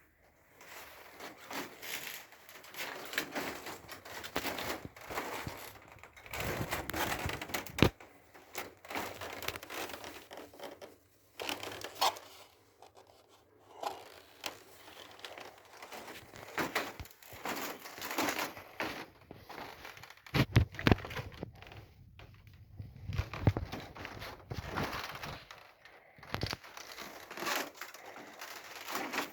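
Irregular rustling, crinkling and crackling, broken by sharp clicks and a few knocks.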